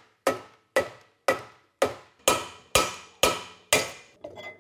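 Hammer tapping on the end of a Honda GX270 engine's crankshaft at the flywheel hub, metal on metal, about two blows a second, eight in all, the later ones somewhat harder, to knock it loose. A lighter clatter follows near the end.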